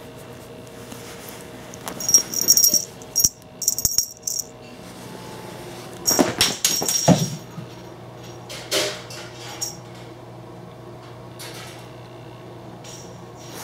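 Small cat toy being shaken in short jingling, rattling bursts, then a clatter about six seconds in as it is thrown across the room for the kitten to fetch, with a single knock a couple of seconds later.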